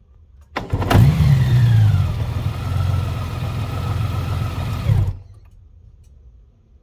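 2021 Honda Gold Wing SC79's flat-six engine starting abruptly with a sharp clunk, revving briefly, settling to idle, then shut off suddenly after about four seconds. The clunk at start-up is the noise the owner is concerned about.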